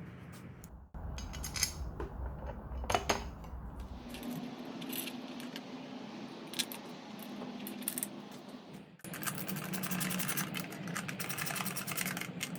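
Small metal parts clinking and rattling as they are handled, with many sharp clicks over a low steady hum; the background changes abruptly about a second in and again about nine seconds in.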